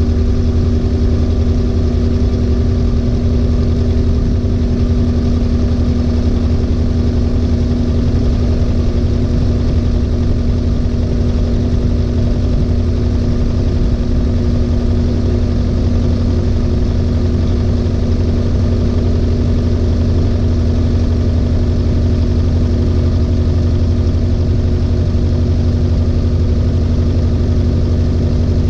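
LG 18 kg washing machine in its final spin, the drum turning at a constant speed with a steady motor hum and whir.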